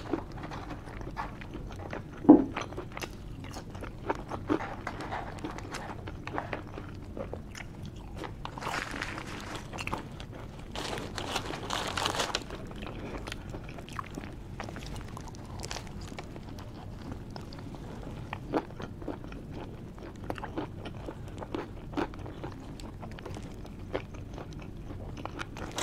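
Close-miked chewing, biting and lip-smacking of a person eating a cheesesteak sandwich and garlic fries, with a louder mouth sound about two seconds in and a couple of longer rustling stretches around nine and eleven seconds in.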